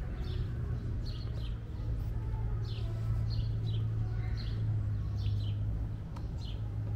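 Small birds chirping over and over, short high chirps coming about two a second, over a steady low hum.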